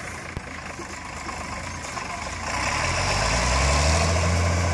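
Farm tractor engine running at low speed as the tractor pulls a loaded hay wagon past, growing louder about two and a half seconds in as it draws near.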